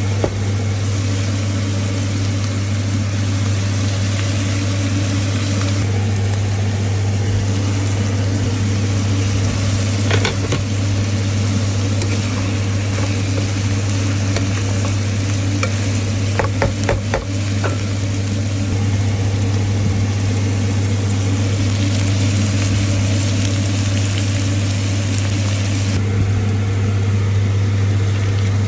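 Stir-fry of pork, tofu and bitter gourd sizzling in a hot pan over a steady low hum. The stirring utensil clinks against the pan once about ten seconds in and several times in quick succession a little past halfway.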